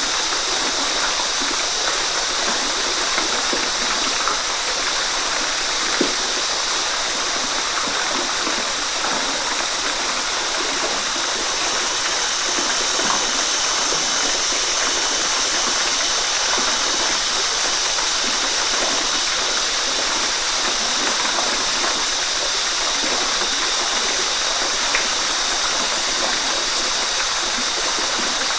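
Waterfall: a steady rush of falling, splashing water, strongest in the higher pitches, with small splashes now and then.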